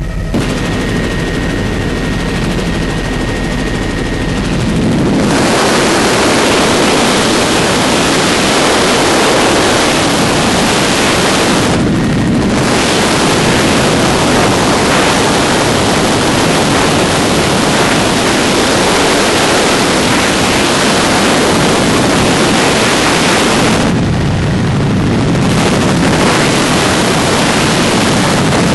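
Helicopter in flight heard from inside: a steady engine and rotor hum for the first few seconds, then a loud, even rushing noise covers it from about five seconds in, easing briefly twice.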